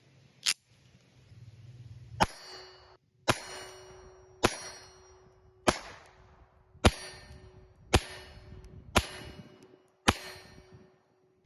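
Mauser 1910 .25 ACP pocket pistol fired nine times at a slow, steady pace, about one shot a second, each shot followed by a brief ringing tail.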